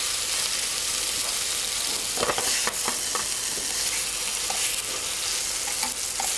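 Beef rump steak sizzling in olive oil in a hot non-stick frying pan, a steady high hiss: the sizzle that shows the pan is hot enough to sear the meat properly. A few light clicks come about two to three seconds in.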